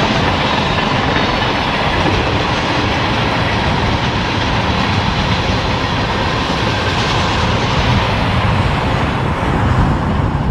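Freight train cars rolling past on steel wheels, a steady rumble with the clickety-clack of wheels over the rail joints. The sound thins out near the end as the last car goes by.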